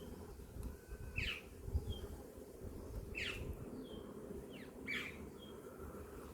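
A bird calling: three quick falling notes about two seconds apart, with short high whistles between them. Under them runs the steady hum of honeybees around an open hive.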